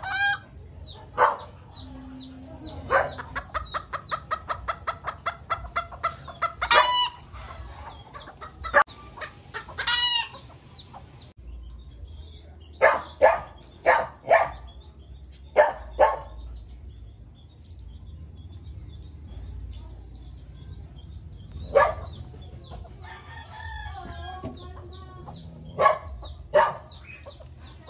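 Bantam chickens calling: short, high, falling peeps of chicks mixed with a hen's clucking, including a fast, evenly spaced run of clucks a few seconds in and longer calls near 7 and 10 seconds.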